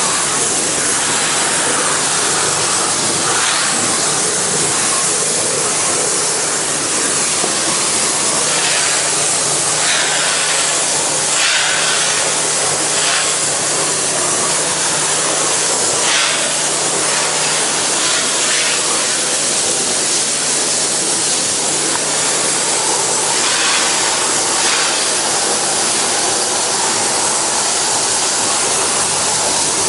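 Pressure washer spraying water onto wooden deck boards: a loud, steady hiss of spray over the machine's steady low hum, swelling briefly every few seconds. The spray is blasting dirt out from between the boards.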